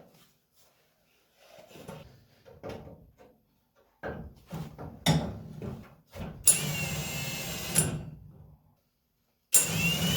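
A few knocks and clicks of tool handling, then a power drill running in two loud bursts of about two seconds each as it drills into the car body's sheet metal, its whine shifting in pitch under load.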